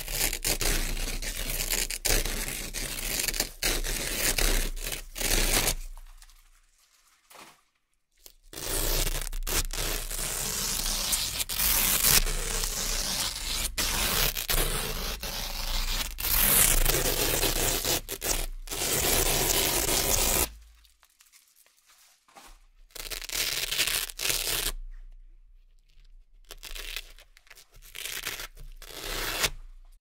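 Velcro hook-and-loop strips being peeled apart, long crisp ripping tears. They break off twice, about six seconds in and about twenty seconds in, and become shorter, broken peels near the end.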